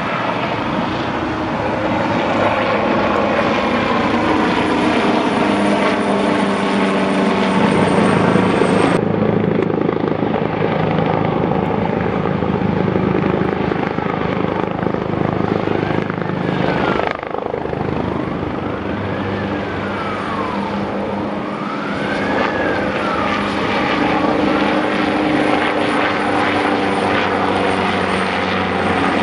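AgustaWestland AW139 twin-engine turbine helicopter flying past and overhead: steady rotor and engine noise.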